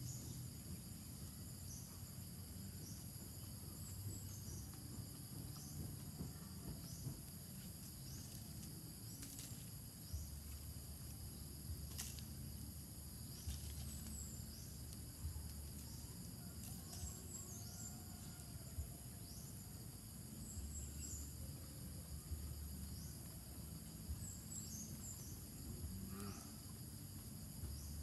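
Steady outdoor chorus of insects, with short high chirps repeating about once a second over a low rumble. A few sharp clicks stand out now and then.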